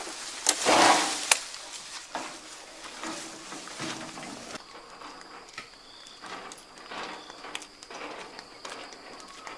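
Bundle of cut leafy branches thrown down onto brush: a loud rustling, crackling crash about a second in, then scattered lighter rustles and twig snaps.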